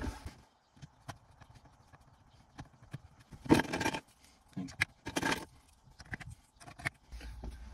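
Scattered light clicks and taps of plastic dashboard parts being handled and fitted: the climate-control dial knobs pushed back onto their spindles below a car stereo, with a couple of short scuffing scrapes. A low rumble comes in near the end.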